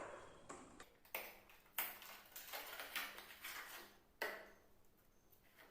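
Faint handling sounds of a toothpaste tube being opened and squeezed into a bowl: a few short taps and rustles, the sharpest about a second in, near two seconds and just past four seconds.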